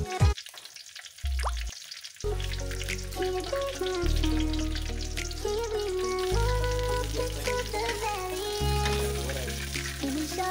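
Hot oil sizzling steadily in a wok around a whole unpeeled citrus fruit deep-frying. Background music plays over it, cutting out for about the first two seconds.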